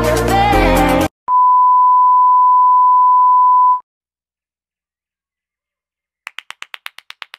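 Electronic music cuts off about a second in, followed by a steady, high electronic beep tone lasting about two and a half seconds. Near the end comes a quick run of about ten short clicks.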